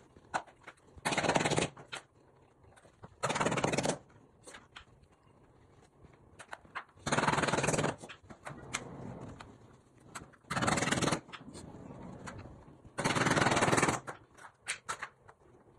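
Interlocking plastic modular mat tiles being handled and pressed together on a hard tile floor: five bursts of rapid rattling clatter of about a second each, with scattered sharp clicks in between.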